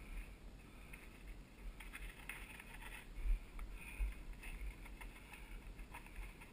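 Mountain bike rolling down a dirt singletrack: the tyres crunch over dry leaves and the frame and drivetrain rattle, over a low rumble of wind and jolting on the camera. There are a couple of harder knocks about three and four seconds in.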